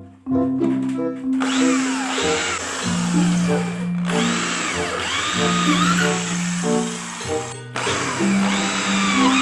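Power drill running under load, as when drilling out the rivets that hold a riveted lower ball joint. It starts about a second and a half in and stops briefly twice, with its pitch wavering. Background music plays throughout.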